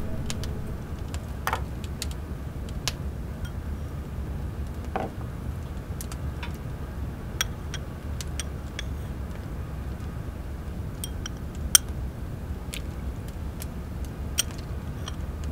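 A porcelain spoon clinking against a small ceramic bowl as liquid is stirred, in scattered, irregular light clinks, the sharpest about twelve seconds in, over a steady low rumble.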